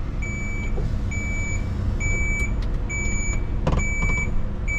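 A lorry's reversing alarm beeps steadily about once a second over the low running of a lorry engine: an 18-tonne lorry shunting back into the parking bay alongside.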